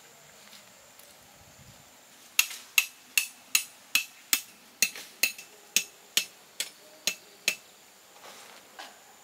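A metal tent stake being driven into the ground with a hammer. About fourteen sharp, ringing metal strikes come in an uneven rhythm of two to three a second, starting a couple of seconds in and stopping before the end.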